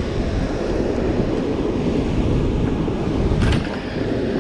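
Wind buffeting the camera microphone over the steady rush of churning water released through an open dam spillway, with a short burst of noise about three and a half seconds in.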